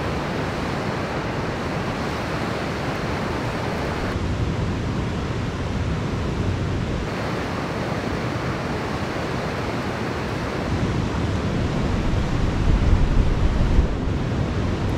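Wind rushing and buffeting the microphone: a steady rushing noise with an uneven low rumble, changing tone abruptly a few times.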